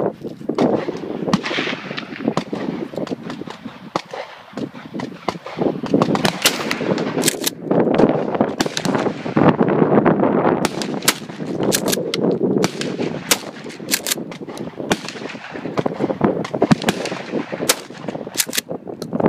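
Repeated gunshots, sharp cracks often less than a second apart, including a Mossberg pump-action shotgun firing 20-gauge buckshot, with wind rushing over the microphone.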